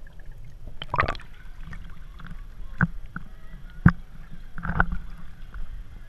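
Water sloshing and splashing around inner tubes in a lazy river, with a low rumble and four short, sharp splashes.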